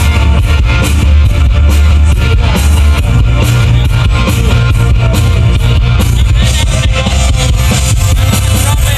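Rock music played loud through a concert PA system during a sound check: guitar over heavy, booming bass and a steady drum beat.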